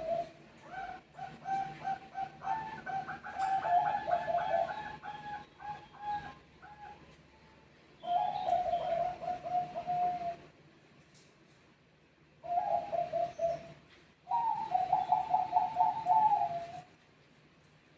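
Zebra doves (perkutut) cooing back and forth in four bursts of rapid, stuttering coos with short quiet gaps between them. The first burst is the longest.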